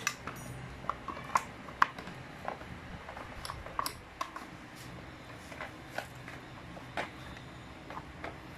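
Irregular light clicks and clacks of a plastic engine cooling shroud being handled and pressed into place over a scooter engine's cylinder, the loudest about a second and a half in.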